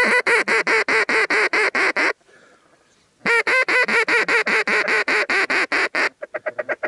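Duck call blown close by in fast, even runs of quacks, about seven a second: a run of about two seconds, a second's pause, a run of about three seconds, then softer, quicker notes near the end.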